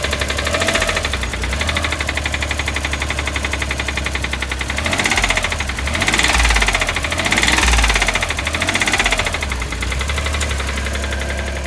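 Suzuki Cara's F6A twin-cam turbo three-cylinder engine running with a constant fast rattling knock, revved up and back down a few times near the middle. The knock persists despite fresh main and rod bearings, and the owner takes it for the piston hitting the head.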